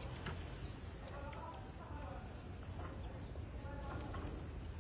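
Marmosets calling: many short, high-pitched chirps that drop in pitch, with a few lower clucking calls in the middle and a long high whistle starting near the end.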